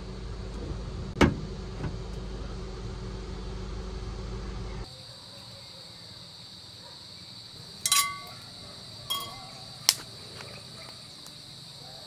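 A steady low hum with one sharp click about a second in, then steady high chirring of insects, over which a forged iron frying pan clanks down onto a campfire grill grate, three metal hits with a short ring after the first.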